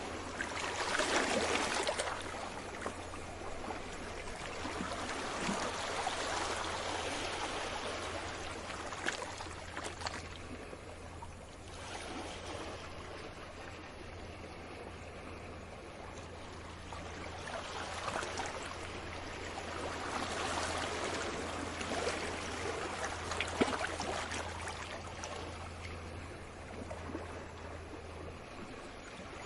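Small sea waves washing in and draining back, rising and falling in swells a few seconds apart.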